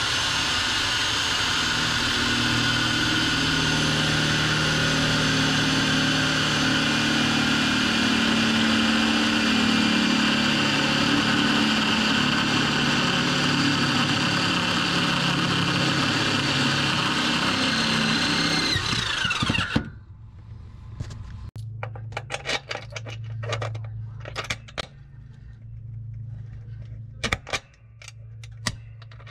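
Angle drill running steadily for about twenty seconds as it bores a bolt hole through the car's steel underbody, then winding down. Light metallic clicks and rattles follow.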